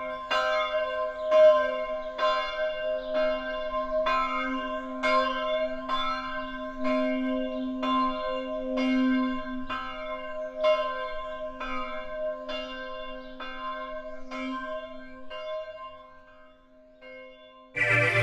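A bell struck over and over, about three strikes every two seconds, each strike ringing out over a steady low hum. The strikes die away in the last few seconds, and music comes in just before the end.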